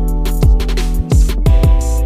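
Background music with a steady beat: a deep drum hit about twice a second under held chords.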